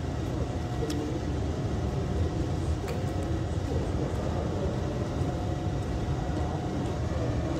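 Steady low background rumble, with a few faint clicks about a second and three seconds in.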